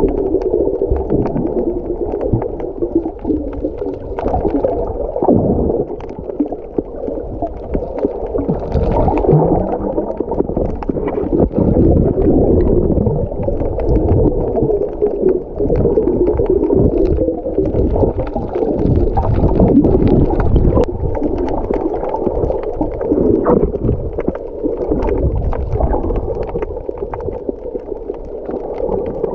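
Muffled, continuous rumbling and gurgling of moving water, as picked up underwater by a camera in a waterproof housing.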